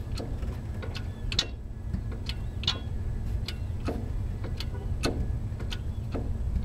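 Hand-operated strut-filler pump being worked to push hydraulic fluid into a dry landing gear strut: sharp clicks at uneven spacing, about one every half second, over a steady low rumble.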